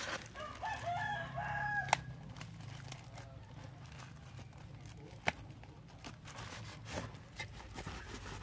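A rooster crows once, starting about half a second in and lasting about a second and a half. Around it, a plastic-wrapped parcel rustles and crinkles with scattered sharp clicks as it is opened by hand.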